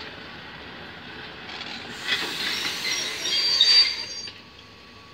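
Passenger train coaches rolling past on a curved track, with a loud high-pitched metallic wheel squeal starting about two seconds in, lasting about two seconds, then dying away.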